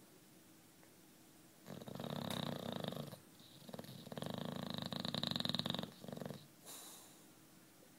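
Old British bulldog snoring in its sleep: two long, fluttering snores with a short pause between them, then a couple of brief shorter breaths.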